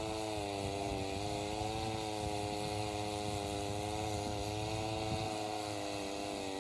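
Small gas engine of an ice-cutting power tool running steadily at a fixed speed, its pitch wavering slightly.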